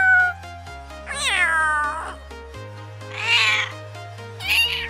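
Domestic cat meowing repeatedly, each meow a separate pitched call, the longest drawn out for about a second, over background music of sustained chords.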